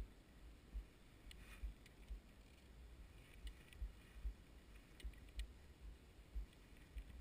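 Near silence, broken by faint low thumps at irregular intervals and a few light clicks.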